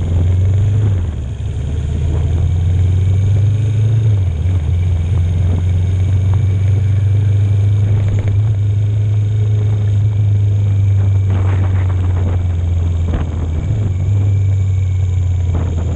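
1981 Yamaha XS400 air-cooled parallel-twin engine running steadily as the motorcycle rides along, a low even engine note that dips briefly about a second in and then holds.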